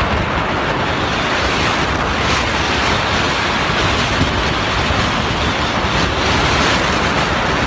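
Strong wind of an advancing dust storm (haboob) blowing hard across the phone's microphone: a loud, steady rushing noise.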